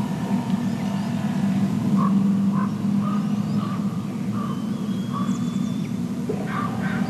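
A steady low motor drone, with a bird giving a string of short calls about twice a second from about two seconds in and a few harsher calls near the end.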